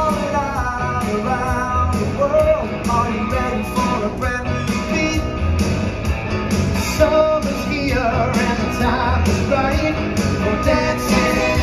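Singers performing a rock-and-roll song over a backing track with a steady drum beat, amplified through a theatre sound system during a sound check.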